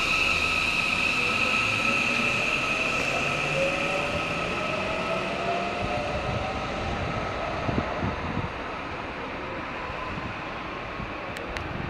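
JR West commuter electric train pulling away from the platform: its traction motor whine rises in pitch as it gathers speed, over wheel-on-rail rumble, and all of it fades as the train draws off. A few wheel knocks come near the middle.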